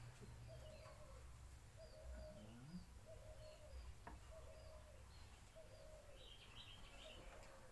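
Faint bird calls: a short note repeated about once a second, with higher chirps near the end, over a low steady hum.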